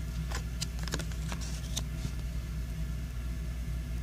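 Paper trading cards being slid and shuffled in a hand-held stack: a few light clicks and rustles, mostly in the first two seconds, over a steady low hum.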